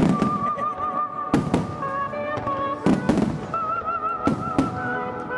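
Aerial firework shells bursting in a series of heavy booms, roughly one every second or so, each with a rumbling tail, over music with a sustained, wavering melody.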